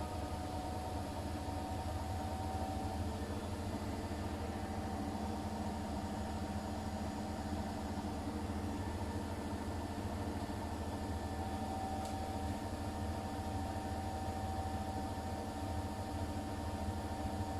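Siemens iQ500 washing machine running on its delicates/silk programme: a steady motor hum with a few fixed whining tones, unchanging throughout.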